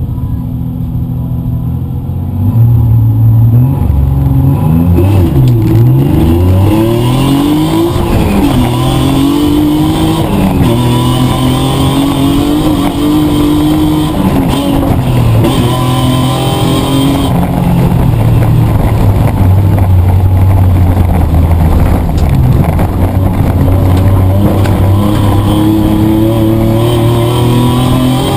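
Petrol Mitsubishi Triton 4WD's engine heard from inside the cab while racing, its pitch rising and falling over and over as it revs and changes gear. The engine gets much louder about two seconds in, when it comes under hard throttle.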